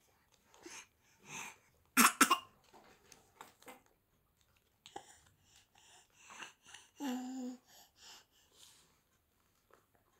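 A baby's vocal sounds: two sharp cough-like bursts about two seconds in, then scattered breathy little sounds and a short pitched coo about seven seconds in.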